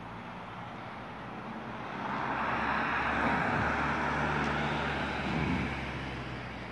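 A motor vehicle passing by: an engine hum with a rushing hiss swells about two seconds in, is loudest in the middle, and fades toward the end.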